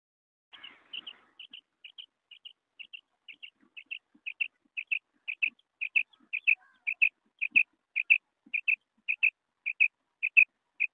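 Common quail calling: short, high, clipped notes, repeated about twice a second. They begin about half a second in and grow louder over the first few seconds.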